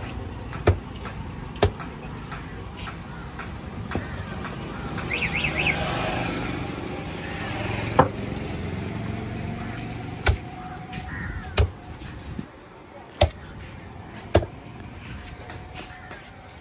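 A heavy fish knife chopping through tuna onto a wooden log chopping block: about nine sharp knocks at irregular intervals of one to two seconds. Steady road-traffic rumble runs underneath, swelling a few seconds in.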